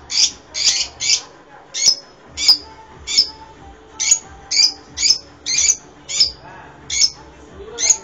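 Fischer's lovebirds giving a run of short, shrill, piercing calls, about two a second with brief pauses, some calls ending in a falling note.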